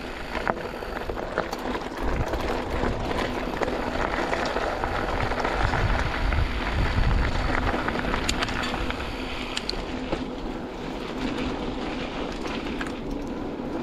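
Canyon Spectral AL 6.0 mountain bike riding down a dirt trail: steady tyre noise over loose ground with frequent clicks and rattles from the bike, louder for a few seconds midway.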